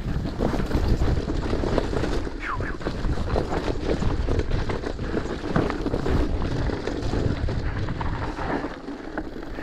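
Wind buffeting the microphone while a mountain bike rolls fast downhill over rocky dirt singletrack. Many short clicks and knocks run through it from the tyres hitting stones and the bike rattling.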